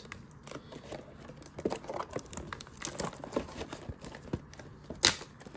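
Plastic shrink wrap crinkling and tearing as it is worked off a cardboard trading-card box, with scattered crackles and one sharp, louder crackle near the end.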